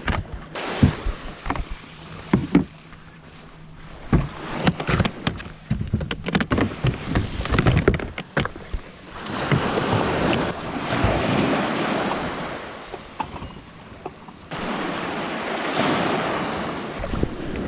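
Sea water washing and splashing in slow swells, with scattered knocks and clatter in the first half.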